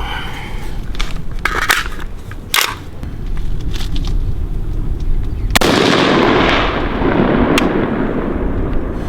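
AR-15 rifle firing single 5.56 shots spaced a second or more apart for a grouping test. The loudest shot comes about five and a half seconds in and trails off over a few seconds.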